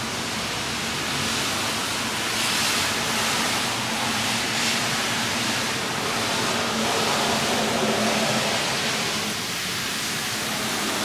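1967 Chevy Camaro's engine idling steadily, heard as an even rushing hiss with a low hum beneath it.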